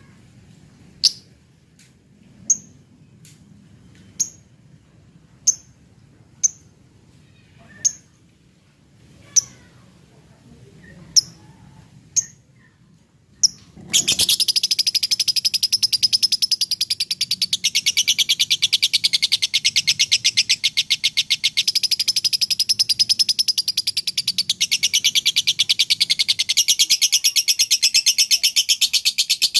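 Lovebird giving single sharp chirps about a second apart, then, about halfway through, breaking into a long unbroken rapid chattering trill, the drawn-out 'ngekek' that lovebird keepers prize as 'konslet'.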